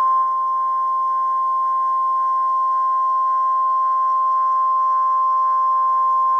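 Emergency Alert System attention signal for a tornado warning: one loud, steady, unbroken alarm tone at a single pitch, like the NOAA Weather Radio 1050 Hz warning tone. It signals that an urgent warning message is about to be read.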